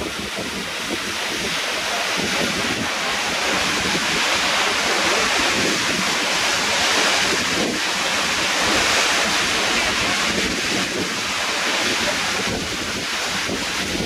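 Waterfall pouring into a rock pool: a steady rushing of falling water, with wind buffeting the microphone.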